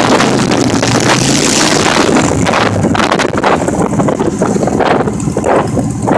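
Heavy wind buffeting the microphone on a moving motorcycle, with the motorcycle's engine running underneath.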